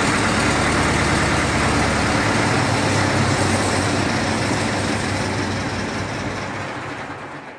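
Zetor 8045's diesel engine running steadily, then winding down and dying away over the last couple of seconds as it stops.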